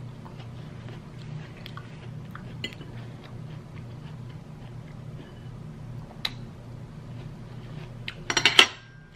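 Metal fork clinking and scraping on a ceramic plate while fruit is picked up: scattered light clicks, then a louder flurry of clinks about eight seconds in. A low steady hum sits underneath.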